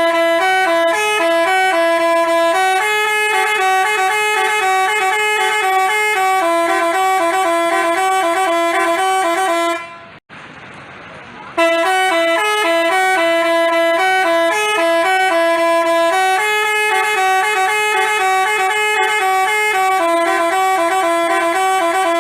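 Telolet basuri multi-tone horn playing a quick tune of stepped notes. The tune stops about ten seconds in, leaving a short hiss, then starts over from the beginning.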